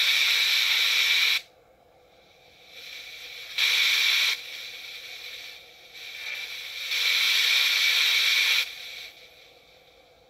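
FM radio static hissing from the small speaker of an Arduino spirit box built on a TEA5767 FM tuner module as it sweeps through channels. Three loud bursts of hiss come and go, the second the shortest, with quieter static and brief near-quiet lulls between them.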